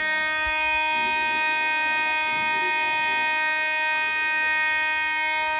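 Building fire alarm sounding a continuous, steady buzzing tone without a break.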